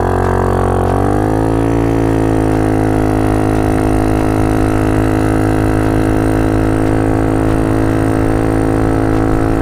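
A GY6 four-stroke single-cylinder scooter engine with an open exhaust, swapped into a Honda Ruckus, pulling away under throttle. Its note rises over the first couple of seconds, then holds steady while the bike rides on.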